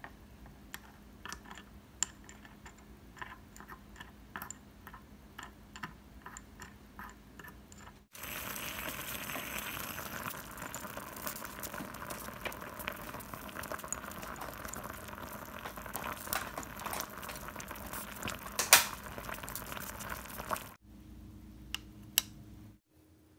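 A small spoon clicks against a miniature metal cup. From about eight seconds in, water bubbles at a simmer in a tiny bain-marie while a thin metal stirrer works through the egg-yolk sabayon mixture in the cup, with scattered clinks and one sharp click near the end. This stops suddenly, and a couple of light taps follow.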